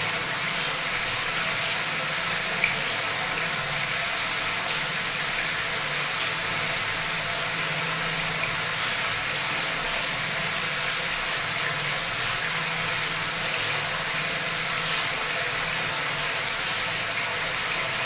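Bathroom wall tap running full force into a brim-full water tub, the stream splashing into the surface as the tub overflows. A steady hiss of pouring water that does not change.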